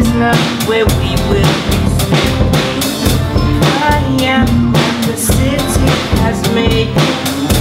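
A band playing live: a drum kit keeps a steady beat under electric and acoustic guitars.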